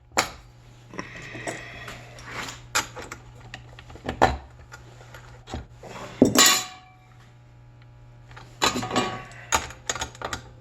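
Metal hand tools clicking, clanking and scraping against a small metal shaft and nut: locking pliers being clamped on to hold the auger drive shaft while the nut is worked off. Irregular sharp clicks, the loudest clank about six seconds in and a run of scraping near the end, over a steady low hum.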